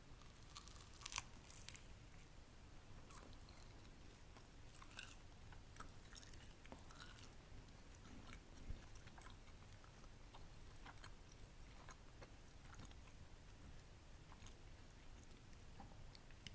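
Faint, close-miked chewing and biting of a pan-baked egg wrap with a crispy shell: soft, scattered crunches with short pauses between them.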